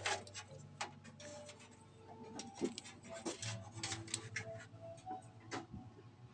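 Irregular light clicks and taps of small parts being handled and fitted into a PC case, a sharper click right at the start.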